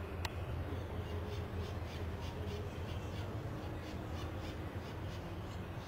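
A dog barking faintly in a quick, even series, about five barks a second, over a steady low rumble.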